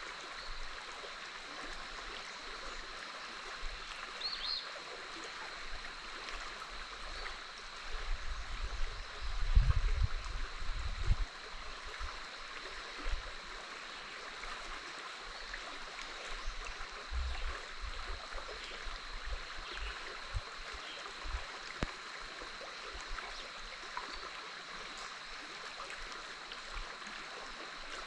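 Big Otter River flowing steadily, an even rush of water with a faint steady high-pitched tone over it. About eight seconds in come a few seconds of low rumbling thumps.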